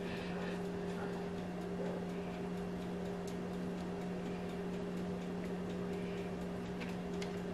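Steady low background hum with a couple of faint light clicks.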